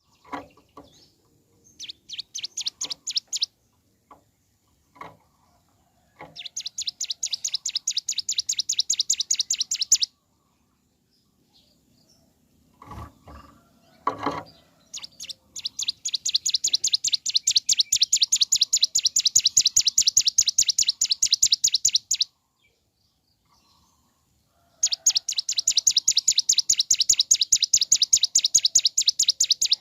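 Hill prinia (ciblek gunung) singing its fast rattling 'bren' trill: long runs of sharp notes repeated evenly at about eight a second, in several bursts, the longest about seven seconds. Two dull knocks sound in the pause midway.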